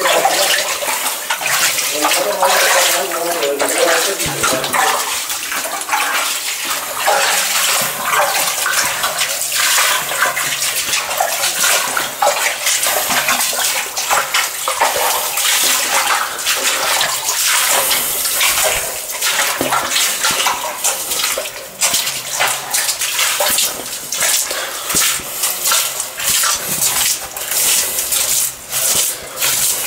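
Rubber boots wading through shallow water, with steady, irregular splashing and sloshing at each step.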